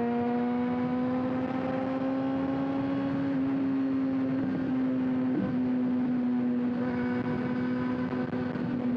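Kawasaki ZX-6R inline-four engine at steady cruising revs while riding, its pitch creeping up slightly over the first few seconds and then holding, with wind and road noise underneath.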